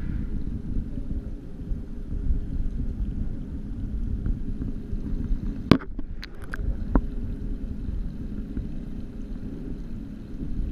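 Muffled, steady low underwater rumble heard through a GoPro's sealed underwater housing. A little past halfway there are a few sharp clicks, as hard lobster shell knocks against the housing.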